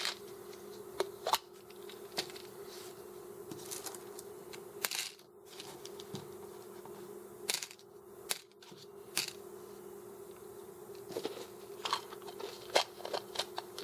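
Scattered light clicks and knocks from a plastic candy dispenser filled with M&M's being handled and twisted, more of them near the end, over a steady low hum.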